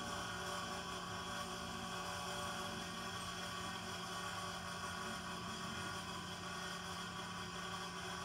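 Greenhouse ventilation fan running with a steady, even hum and a constant low tone.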